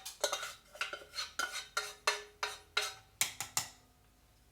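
A metal utensil clinking against metal cookware in a quick, even run of ringing clinks, about three a second, while the cooked lentils are handled after straining. The clinks stop about three and a half seconds in.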